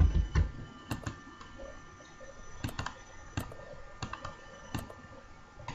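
Computer mouse button clicking: about four sharp, separate clicks a second or so apart, some as quick double press-and-release ticks.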